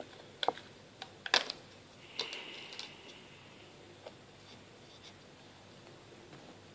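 A clear plastic makeup palette being handled and opened: a few sharp plastic clicks and taps, then a short scratchy rub about two seconds in and a couple of faint ticks.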